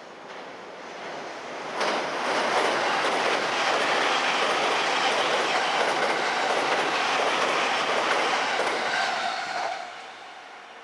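Electric limited-express train passing over a steel girder bridge, its wheels clattering on the rails. The sound builds, swells suddenly about two seconds in, holds steady, then dies away near the end as the last car clears.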